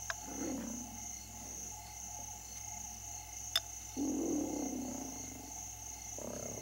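Savanna night ambience: insects chirring steadily at a high pitch, with low rumbles swelling and fading underneath, loudest about two-thirds of the way through. A single sharp click about halfway through.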